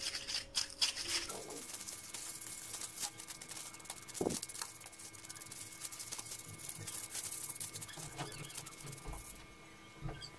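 Wooden stick stirring thick paint in a polystyrene foam tray: faint, irregular scraping and light tapping that stops near the end.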